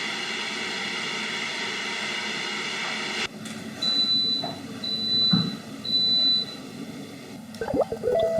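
A steady electric motor runs and cuts off about three seconds in. Then an appliance gives three short, high electronic beeps, about a second apart, with a few light clicks near the end.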